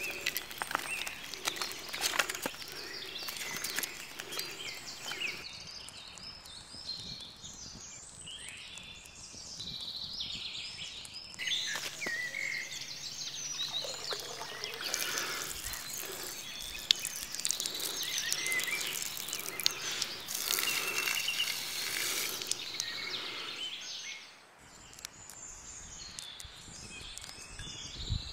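Birds singing and chirping, with sharp crackling in the first few seconds as birch bark kindling catches fire.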